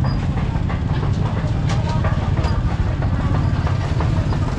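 Busy street-market ambience: a steady low rumble of motorbike engines, with scattered clicks and clatter and background voices.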